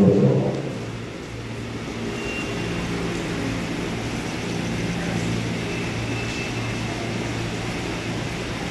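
Steady low hum of an electric commuter train standing at the platform, with a faint high-pitched whine twice.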